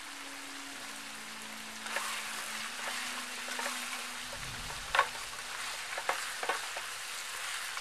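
Duck pieces frying in a pan with condensed milk, sizzling steadily while a metal spatula stirs them, scraping and knocking against the pan a few times, loudest about five seconds in.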